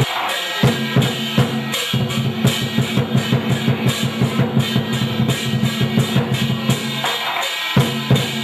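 Drums and cymbals beating a fast, steady rhythm of about four strokes a second, with a brief drop in the low drum about half a second in and again near the end.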